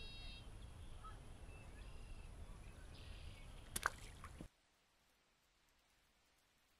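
Outdoor ambience at the water's edge: a low steady rumble with a few faint bird calls, and a sharp click a little under four seconds in. About half a second later the sound cuts off abruptly to near silence.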